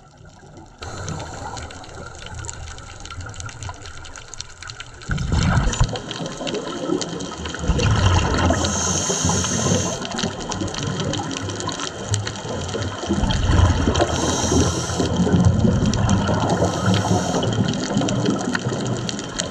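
Underwater sound on a scuba dive: a diver's exhaled bubbles surging and gurgling over and over, with three short high hisses from the regulator. The sound starts about a second in and gets louder about five seconds in.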